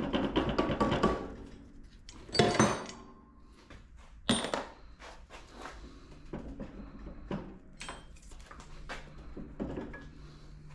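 Cast-iron cooling-fan flywheel being worked off the crankshaft by hand: metal clanks and clinks that ring briefly. The loudest come about two and a half seconds in, with a sharp knock a little after four seconds and lighter clicks after that.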